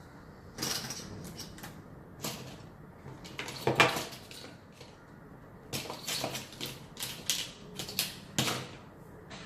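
Irregular clicks, knocks and short rustles of objects being handled and set down on a desk. The loudest knock comes a little under four seconds in.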